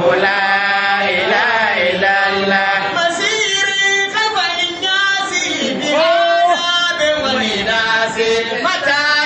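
Men's voices chanting a Sufi dhikr in Arabic. From about three seconds in, a lead voice sings a more ornamented line into a microphone over the chant.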